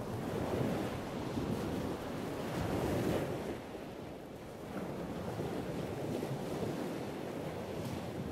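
Steady rushing water noise heard underwater through a camera housing, a low hiss that swells and eases slightly.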